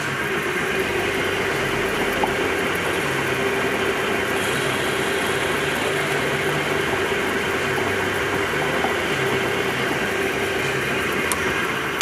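Metal lathe running at a steady speed with a constant hum, while its tool bit takes a light facing cut across the end of an espresso machine's E61 lever cam pin to make it flat again.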